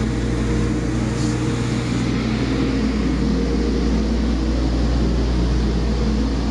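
A 2000 Detroit Diesel Series 60 12.7-litre inline-six diesel engine (DDEC IV, 430 hp) idling steadily on a test stand, with an even, low drone and no revving.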